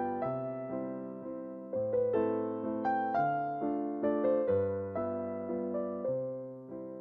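Background music: a gentle piano piece, chords and a melody struck and left to decay, with the chord changing about every second.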